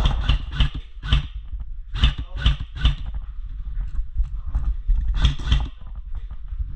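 A run of sharp knocks in short groups of two or three, about half a second apart, over a steady low rumble of wind or handling on the microphone.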